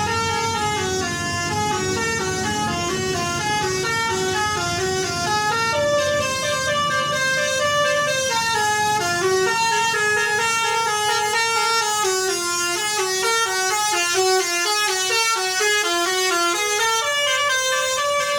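Basuri V3 telolet bus horn, a set of electronically sequenced air-horn trumpets, playing a continuous tune. Several horn notes sound together and step up and down in pitch without a pause.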